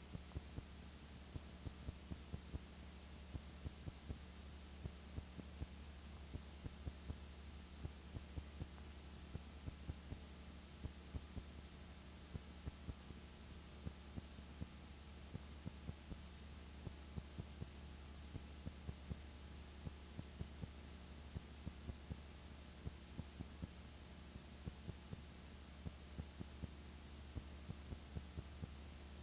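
A steady low electrical hum with irregular sharp clicks and pops scattered through it, a few each second.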